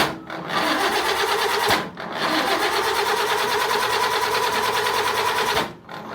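1952 Land Rover's starter cranking the engine with a fast, even rhythm in bursts, with short breaks just after the start, about two seconds in and near the end. The engine turns over but does not catch: a crank-no-start despite spark at every cylinder, a new distributor, a rebuilt carburettor and a new SU fuel pump.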